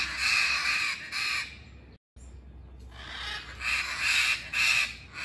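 A flock of macaws squawking harshly, several calls in two runs with a brief break in the sound about two seconds in.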